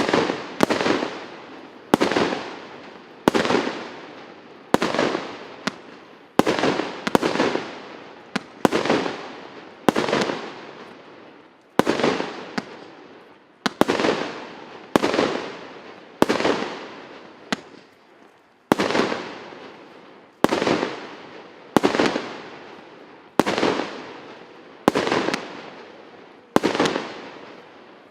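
Premiera R8030 fireworks battery, 96 shots of 1.25-inch calibre, firing shot after shot: a sharp bang about once a second, each followed by a tail that dies away.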